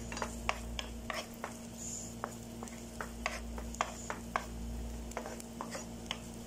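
Wooden spatula stirring chopped shallots and garlic in a little oil in a non-stick frying pan: irregular light clicks and scrapes of the spatula on the pan, about two or three a second, over a faint sizzle from oil that is not yet very hot.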